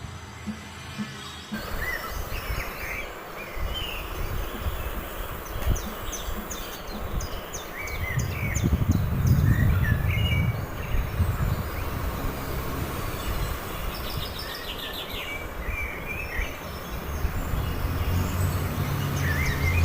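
Small birds chirping in short calls scattered throughout, with a couple of quick trilled runs, over a steady low background rumble that swells about halfway through.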